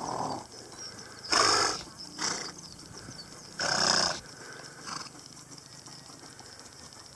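Horses snorting close by: several short, noisy snorts, the loudest about a second and a half in and about four seconds in, with softer ones at the start, just after two seconds and near five seconds.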